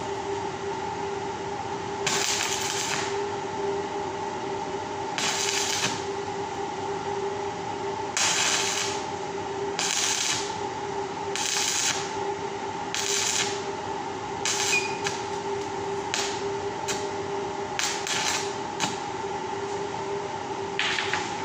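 Electric arc welding a round steel wire grill grate: about a dozen short bursts of arc noise, each a second or less, as the wires are tack-welded in place. A steady hum runs underneath.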